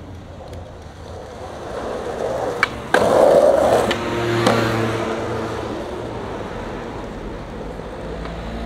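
Skateboard rolling on street asphalt. A sharp pop about three seconds in, a landing crack about a second and a half later, then the wheels rolling on and slowly fading.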